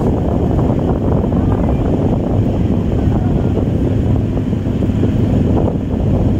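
BEML stainless-steel EMU local train running at speed, heard from on board: a loud, steady rumble of wheels on the track with wind buffeting the microphone.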